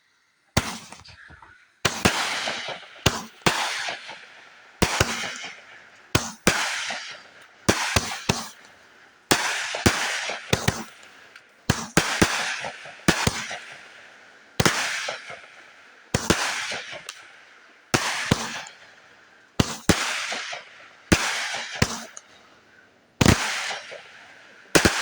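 Fireworks going off in a steady series, a sharp bang about every one and a half seconds, each followed by a crackling tail that dies away.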